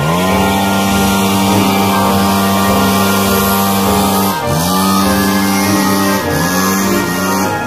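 Backpack leaf blower engine at high throttle, a steady high whine. It climbs to speed at the start, then drops and climbs back up twice, about four and a half and six seconds in, as the throttle is eased and reopened.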